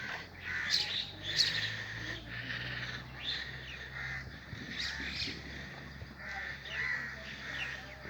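A chorus of birds calling: many short, repeated caws and chirps, with a low steady hum underneath.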